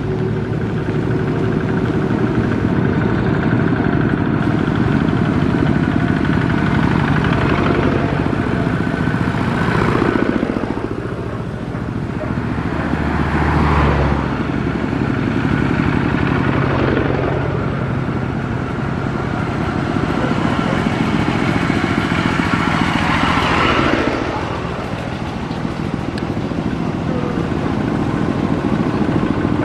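Tractor engine running steadily, its pitch swelling up and falling back several times as it is revved.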